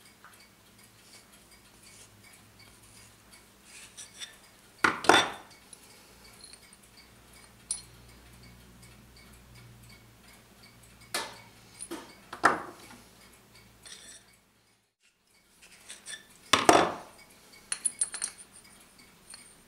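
Steel hand tools and brass clock parts clinking as they are handled and set down at the bench: a steel broach in a brass mainspring barrel cap, the barrel arbor, and the steel block the cap rests on. A few sharp, separate metallic clinks, the loudest about five seconds in and near the end.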